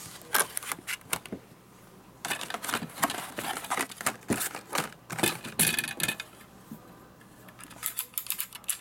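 Hands handling 25 mm snap-off cutter knives and their clear plastic blister packs: crinkling plastic with quick clicks and taps, in several bursts with short pauses between.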